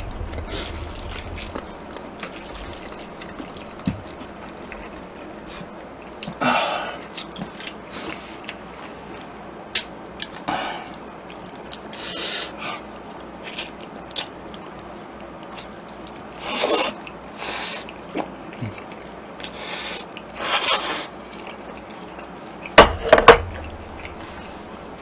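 A person slurping jjajangmyeon black-bean noodles in several short wet slurps, with quieter eating sounds between them. A couple of sharp knocks near the end are the loudest sounds.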